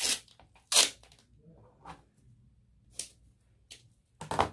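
Black tape being peeled off its roll in short rips, the loudest about a second in, then a snip of scissors cutting it near the end.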